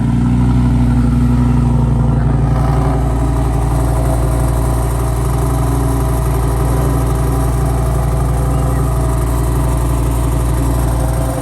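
Lamborghini Gallardo V10 engine idling steadily through a Borla aftermarket exhaust, with an even, unchanging note.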